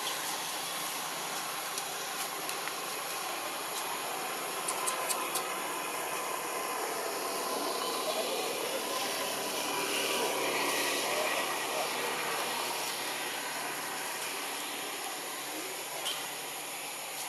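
Steady outdoor background hiss, with a few faint clicks about five seconds in.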